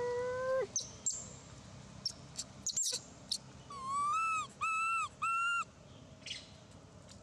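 Baby long-tailed macaque calling: one drawn-out cry at the start, short sharp squeaks, then three high, level-pitched cries in quick succession a little past the middle.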